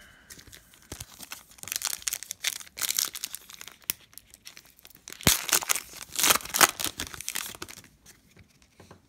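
Foil wrapper of a Donruss Optic basketball card pack torn open and crinkled by hand. The tearing is loudest from about five to seven and a half seconds in, then dies away as the cards are drawn out.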